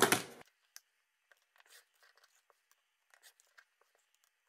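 A rotary cutter slicing through fabric and cut-away stabilizer along a ruler in one short cut at the start, then faint rustling and small ticks as the ruler and cut piece are handled.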